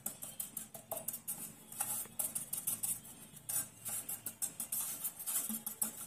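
Background music with a quick ticking beat, under light taps of a metal cake tin knocked against a hand to spread flour over its greased inside.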